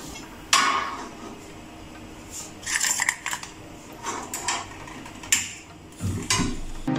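Metal kitchen utensils clattering: a spatula knocking and scraping against a small steel pan on a gas stove, in a series of separate clinks and knocks, the sharpest about half a second in.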